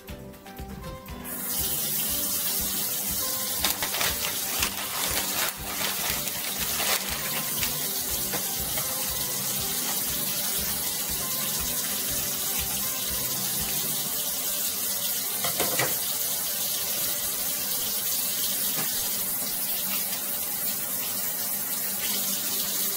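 Kitchen faucet running steadily into the sink, turned on about a second in, as raw chicken breasts are rinsed under it, with a few short knocks and crackles of handling.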